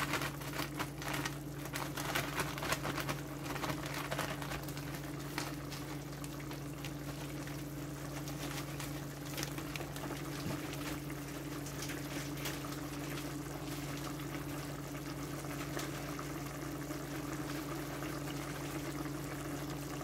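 Pot of broth heating toward a boil, a steady liquid hiss and bubble over a low, steady hum. Irregular clicks and knocks of handling in the first several seconds, as sugar is added.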